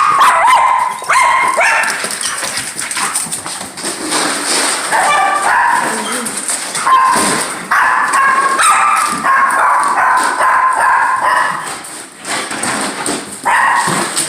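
Excited pet dogs barking and whining in a long run of high, drawn-out calls.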